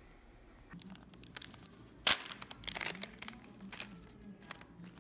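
Plastic snack wrapper crinkling and crackling as it is handled, in irregular bursts, with one sharp crackle about two seconds in.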